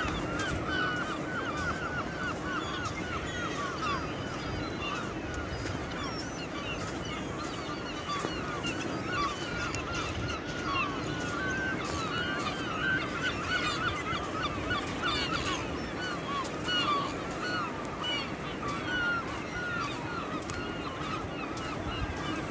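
A large flock of gulls calling continuously, with many short, overlapping cries.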